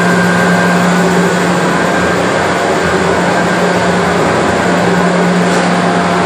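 1966 Cleaver-Brooks oil-fired boilers running: a loud, steady roar of burner and blower with a constant low hum underneath.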